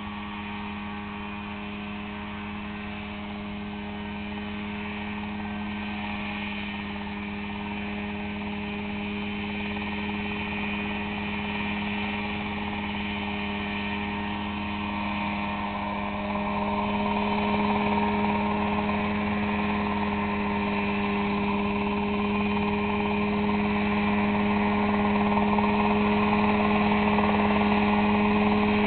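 Mosquito ultralight single-seat helicopter hovering low, its engine and rotor running at a steady pitch. It grows steadily louder as the helicopter comes closer, with a step up about halfway through.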